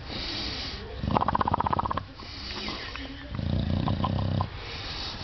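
English Bulldog making happy, almost purr-like sounds while having his belly scratched: two rattling, pulsing grumbles, one about a second in and one past the middle, with noisy breaths in between.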